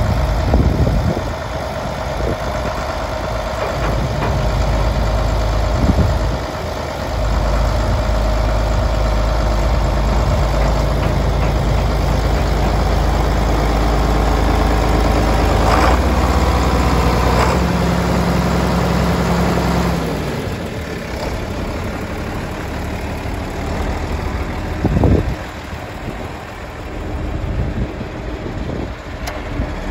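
John Deere 4630 tractor's six-cylinder diesel engine idling steadily, getting somewhat quieter about two-thirds of the way through.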